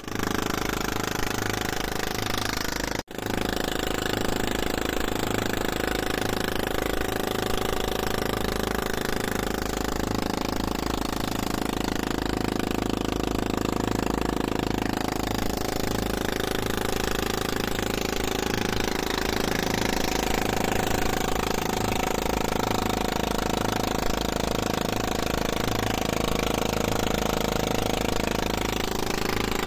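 Engine of a motorized outrigger boat (bangka) running steadily under way. The sound drops out briefly about three seconds in, then carries on unchanged.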